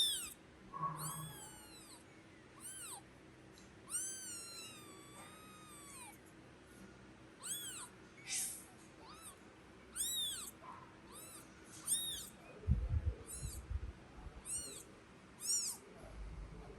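Newborn kitten crying with short, very high-pitched mews, each rising and falling in pitch, about one every second, with a couple of longer wavering cries a few seconds in. A low bumping rumble comes about twelve seconds in.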